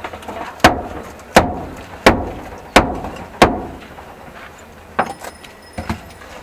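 Five sharp knocks, evenly spaced about 0.7 s apart, then two lighter knocks near the end: a plastic cup packed with shaved ice being rapped on the stall's counter to set and release the moulded ice.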